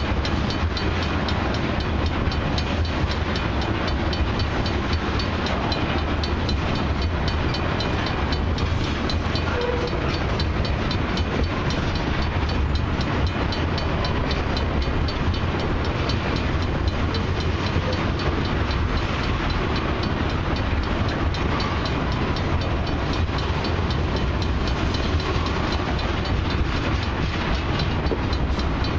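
Loaded crude oil tank cars of a long freight train rolling steadily past: continuous wheel-on-rail noise with rapid clicking of the wheels.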